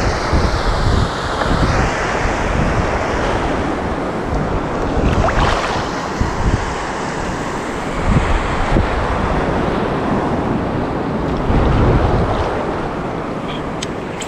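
Ocean surf washing and breaking around a wader standing in the water, with wind rumbling on the camera microphone in gusts.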